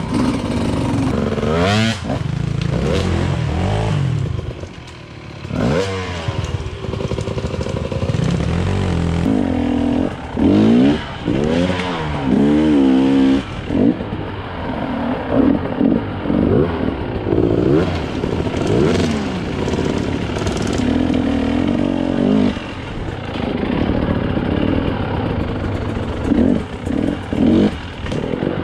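Enduro dirt bike engine revving up and down over and over as it rides a rough trail, the pitch rising and falling every second or two.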